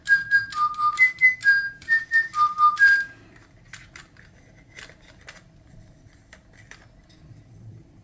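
Electronic DigiBirds toy bird whistling a quick tune of short, steady notes that stops about three seconds in. Faint plastic clicks and knocks follow as the bird is fitted onto the perch of its plastic cage.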